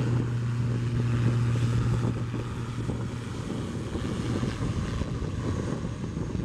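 Airbus A340-300's four CFM56 turbofan engines running at low power on the ground, a steady low rumble. A low hum in the rumble fades out about two and a half seconds in.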